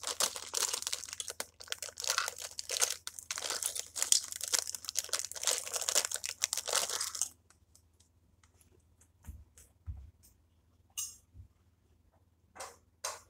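Plastic Lego parts bag crinkling and rustling as it is handled, dense and busy for about seven seconds, then stopping suddenly. A few soft thumps and brief rustles follow.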